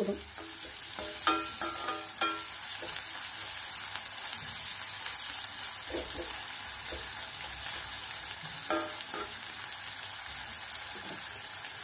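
Sliced onions sizzling as they fry in hot oil in a stainless steel kadai, stirred with a metal slotted spatula. The sizzle is steady. The spatula gives a few short metallic clinks against the pan, three about a second or two in and one more late on.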